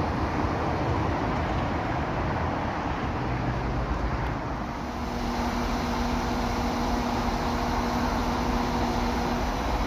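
Northern Ireland Railways Class 4000 diesel multiple unit running through the station, a steady mechanical rumble. After a short dip about halfway, a steady engine hum comes in over the rumble.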